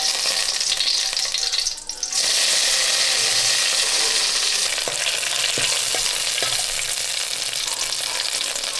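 Curry leaves, mustard seeds and dried red chillies sizzling in hot ghee in a steel kadai for a tempering: a steady hiss that dips briefly and comes back louder about two seconds in, with a few faint ticks.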